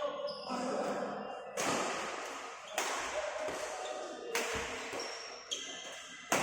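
Repeated sharp strikes, about one every second or so, each leaving a short ringing tone that dies away.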